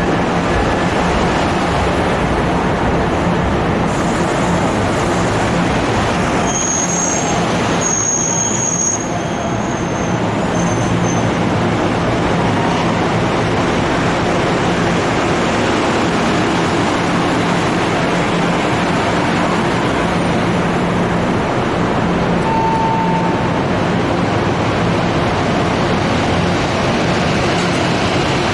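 NJ Transit bilevel passenger coaches rolling past at a station platform: a steady rumble of wheels on rail with a low hum. A few high-pitched squeals come from the train about seven to eleven seconds in.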